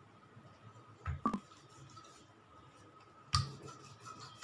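Short knocks of a wooden rolling pin on a marble rolling board as a puri is rolled out: a double knock about a second in and another past three seconds, over a faint steady high hum.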